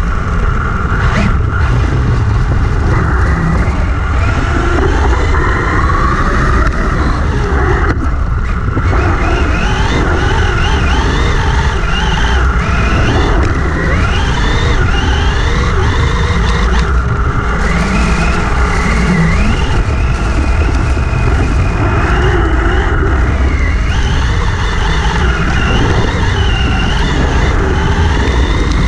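Brushless electric motor and drivetrain of a Vaterra Twin Hammers RC buggy whining, the pitch rising and falling over and over with the throttle. Heavy wind buffeting on the onboard camera's microphone rumbles underneath.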